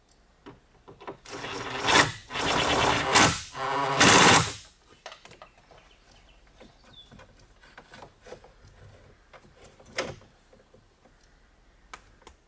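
Cordless drill-driver running in several short bursts for about three seconds, driving a screw at a wire terminal on the car body. Then faint rustling and clicks of cable and plastic boot trim being handled, with one sharper click near the end.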